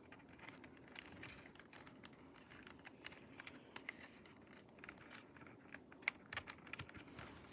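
Faint, scattered small clicks and light rustling of plastic action-figure parts being handled and pried open.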